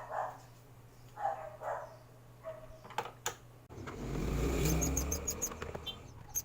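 Two sharp clicks, then a low engine rumble that swells and fades over a couple of seconds, like a motor vehicle passing.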